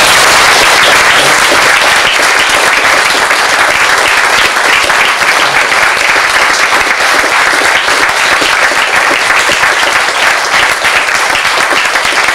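Audience applauding, a dense steady clapping that starts abruptly and keeps up without a break.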